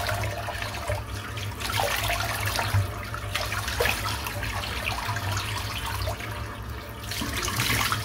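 Water running from a tap into a sink, the splashing swelling and easing as hands move under the stream.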